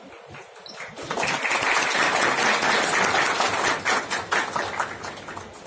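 Audience applauding, starting about a second in and tailing off near the end.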